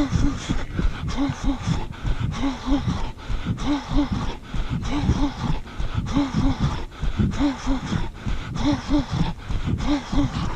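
A runner's heavy rhythmic breathing, voiced exhalations coming in pairs about once a second, over low thuds from his footfalls.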